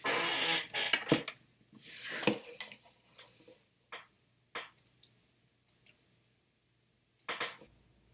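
Computer mouse clicks and handling noises at a desk: two short noisy bursts in the first couple of seconds, then scattered single clicks.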